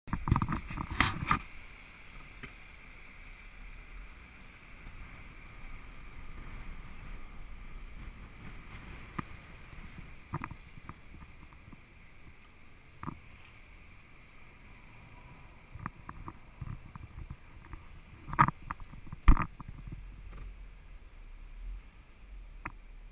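Inside a vehicle creeping along a sand-covered road: a low steady cabin noise with scattered small knocks and rattles. Loud bumps in the first second or so come from the camera being handled and set in place, and two sharp knocks come close together late on.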